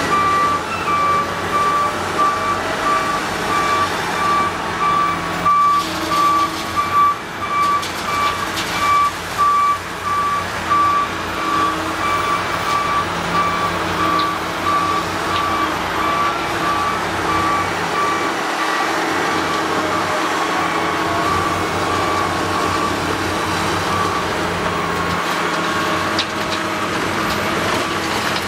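A reversing alarm sounding a steady run of single-pitch beeps, fading in the second half, over the running diesel engines of the heavy excavator and truck at the gravel loading.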